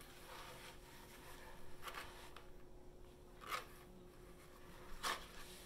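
Faint handling sounds of hair and hot rollers being worked on a hairpiece: three short rustles about a second and a half apart over a low steady room hum.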